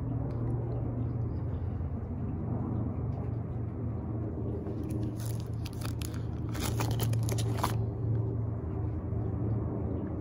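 Steady low hum of an idling vehicle engine. About five seconds in, the plastic sleeves of a photo album crinkle as a page is turned.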